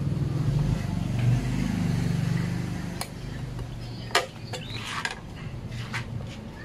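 A motor vehicle engine hums past, swelling and then fading over the first three seconds. After that come a few sharp metallic clicks and taps, the loudest about four seconds in, from a wrench being handled at the motorcycle's plate mount.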